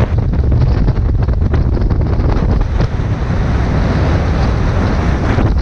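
Wind buffeting an action camera's microphone as a snowboard runs down a groomed slope, a heavy low rumble throughout. Over it, the board's edge scrapes and hisses on the packed snow, growing denser about halfway through.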